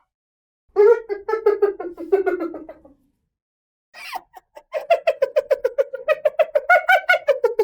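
Hyena calling in two long runs of rapid, staccato pitched pulses, about eight to ten a second. The first run drifts down in pitch; a short rasping note comes between the runs, and the second run holds its pitch, then drops at the end.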